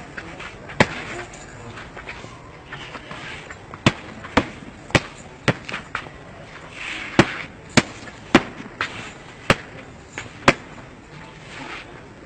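Boxing punches landing on a padded target: about eleven sharp smacks at irregular intervals, several in quick runs about half a second apart.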